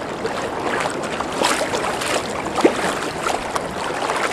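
River water splashing and sloshing as a hooked fish thrashes at the surface beside a wading angler's legs and hands, over a steady rush of wind and moving water, with a few sharper splashes in the middle.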